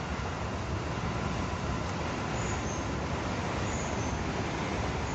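Steady outdoor background noise: an even hiss with a fluttering low rumble, and no distinct events.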